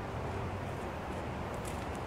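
A car engine idling, a steady low hum under outdoor background noise.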